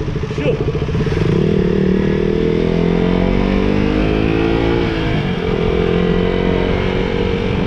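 Motorcycle engine running under way. Its pitch rises as it accelerates over the first two seconds, dips about five seconds in, then holds steady.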